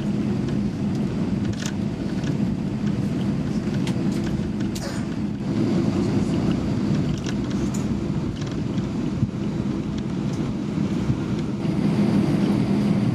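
Airbus A320 cabin noise while taxiing after landing: a steady low rumble from the engines and airframe, with a steady hum and a few faint clicks.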